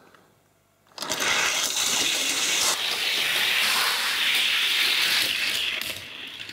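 Die-cast Matchbox toy cars running down a 1971 Matchbox Scorpion plastic race track: a steady rushing noise of wheels on the plastic lanes that starts suddenly about a second in and fades near the end as the cars reach the finish.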